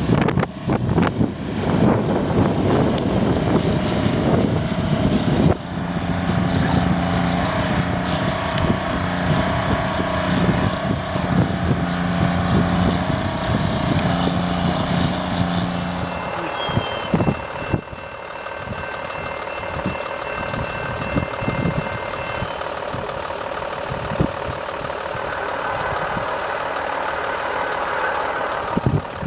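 CN diesel locomotives running close by as they push a Jordan spreader-ditcher through snow: a steady engine drone over a loud rushing noise of the plow and wheels. A bit over halfway through it drops to the quieter, more distant rumble of an oncoming train.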